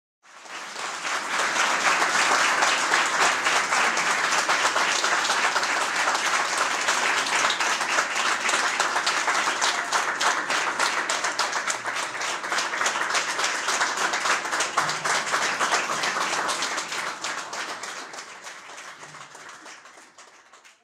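Audience applauding, a dense clatter of many hands that swells in at the start, holds steady, and fades away over the last few seconds.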